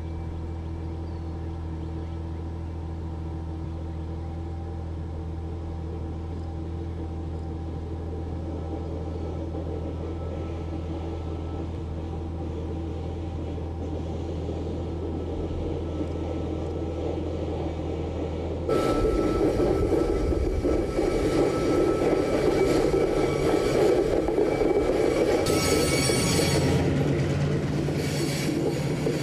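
Diesel switcher locomotive hauling a Titan IV rocket on its rail transporter along the track: a steady low engine drone. About two-thirds of the way through it gives way abruptly to louder, closer engine noise with rumbling and rattling wheels on rail.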